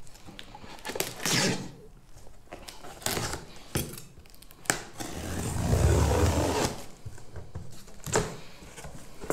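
Box cutter slitting the packing tape along a cardboard box's seam: several short scraping strokes with a few sharp clicks, and a longer, deeper rubbing scrape about five to seven seconds in.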